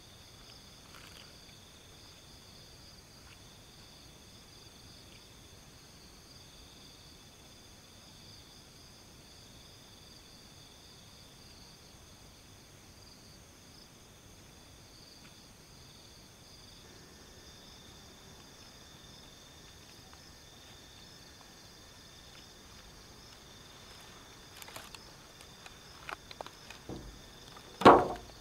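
Night insects such as crickets trilling steadily in several high pitches. Near the end come a few short knocks and footsteps, then one loud knock as a tied bundle of split firewood is set down on the ground.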